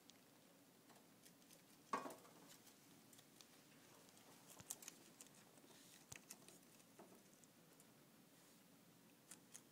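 Faint crunching of a guinea pig chewing red leaf lettuce: scattered small crisp clicks, with one louder knock about two seconds in.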